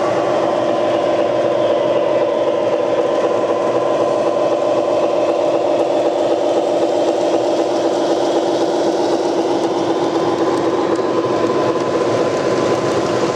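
O-gauge model train with two Union Pacific diesel locomotives pulling freight cars, running on the track: a steady mechanical hum and rumble with several held tones.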